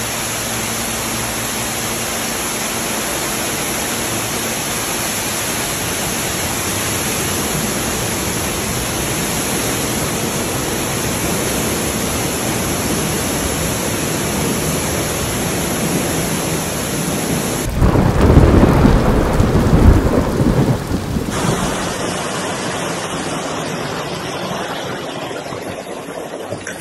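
Floodwater pouring down from a subway station ceiling onto the train and platform: a loud, steady rush of water. About two-thirds of the way in it cuts to a louder, deeper rush lasting about four seconds. A quieter, steady wash of water follows.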